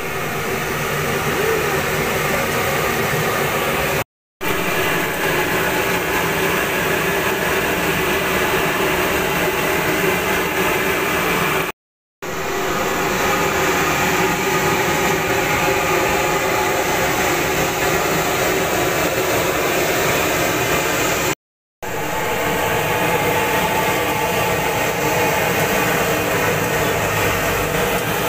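Corn fritters deep-frying in a large wok of hot oil: a steady, loud sizzling hiss that cuts off abruptly three times and resumes.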